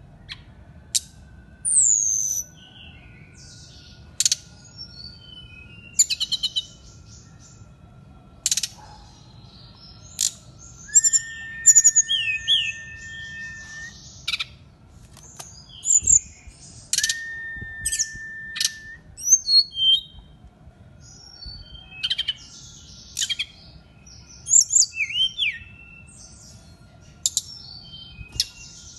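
A caged jungle flycatcher (sikatan rimba dada coklat) singing on and on: a varied string of sharp chirps, quick trills and high slurred notes, with two long, level, flute-like whistles around the middle.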